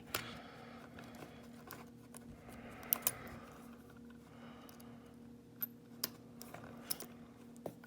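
Light metallic clicks and scrapes of a lock pick working the pins of a pin-tumbler lock, with a handful of sharper ticks scattered through, over a faint steady low hum.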